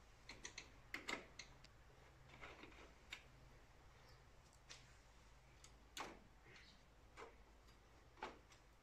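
Faint, irregular clicks and light taps of a screwdriver working on screws and small metal parts in the opened scanner unit of an Océ PlotWave 300 wide-format printer. The clearest taps come about a second in and about six seconds in.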